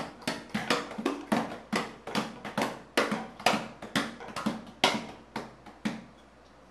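Small goblet-shaped hand drum (a djembe-style 'Costa Rican drum') slapped by a toddler's open hands in a quick, uneven patter of about four or five beats a second, stopping about six seconds in.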